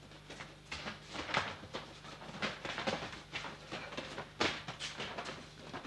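Irregular soft thuds and rustles of several men rolling and landing on gym mats, mixed with footsteps, over a steady low hum.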